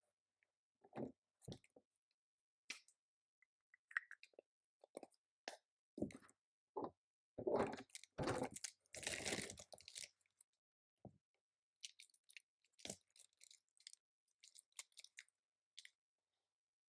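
Faint, irregular clicking and clacking of a computer keyboard being typed on in short bursts, with a denser run of clatter about halfway through.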